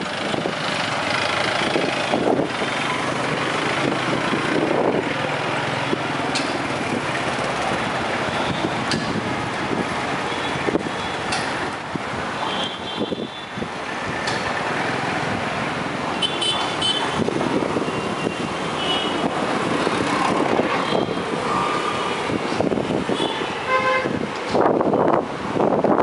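Busy street traffic, with motorbikes and cars running by and vehicle horns honking in short toots several times, most in the second half.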